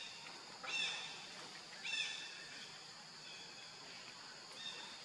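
Forest ambience: a steady high-pitched hum with short, high chirping animal calls over it, two louder ones about a second and two seconds in and fainter ones near the end.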